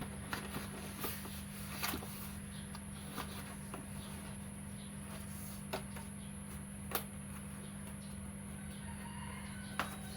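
A few scattered sharp clicks and light knocks, as of objects being handled, over a steady electrical hum.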